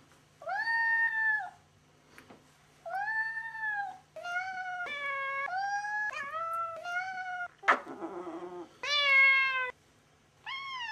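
A domestic cat meowing over and over in protest at being held and cuddled. Two long drawn-out meows give way to a quick run of shorter ones, then a rough, noisy sound about eight seconds in, then two more long meows.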